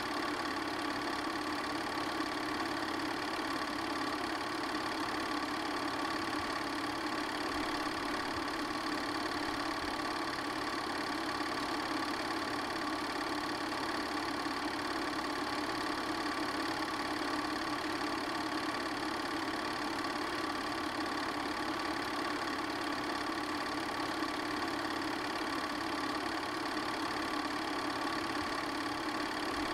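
A small machine running steadily: an even mechanical whir with several constant hum tones, like a small motor.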